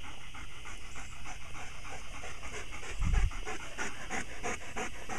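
A dog panting rapidly close to the microphone, about five breaths a second, after running. A brief low thump about three seconds in.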